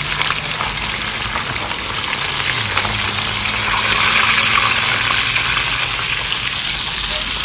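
Fish frying in hot oil, sizzling steadily and swelling a little around four to five seconds in.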